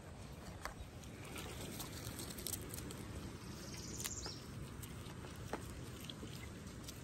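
Prairie dogs chewing lettuce leaves: faint, scattered crunchy clicks over a low rumble, with a brief high trill about four seconds in.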